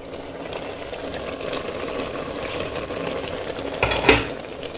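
A pot of squash porridge bubbling and crackling steadily as it simmers, with a single knock about four seconds in.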